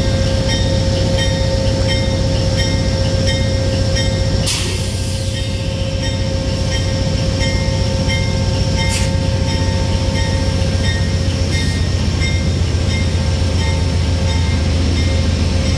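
Amtrak GE Genesis P42 diesel locomotive's engine running with a steady low drone as it pulls slowly out along the platform, its bell striking about twice a second. A short hiss of air sounds about four and a half seconds in.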